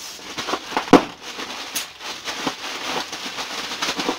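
Packaging being handled around a cardboard shipping box: crackling, crinkling rustles and small clicks, with one sharp knock about a second in.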